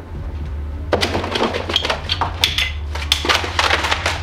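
Shelves being rummaged: a quick series of sharp knocks, clacks and crashes, starting about a second in, as small items are knocked about and tossed onto a window seat. A steady low hum runs underneath.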